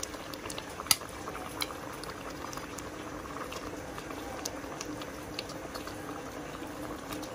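Thick tomato sauce bubbling and popping at a simmer in a stainless steel pot, over a steady low hum. A single sharp click about a second in.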